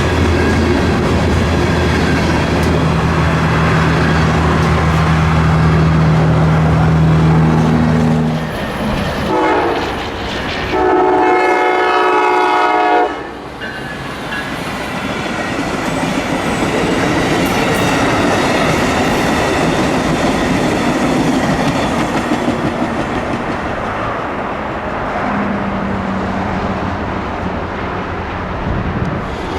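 Diesel locomotive running past with a steady low engine drone. Its horn sounds briefly, then gives a longer chord-like blast of about two seconds near the middle. The passing cars' wheels then roll by with a steady rumble and clickety-clack.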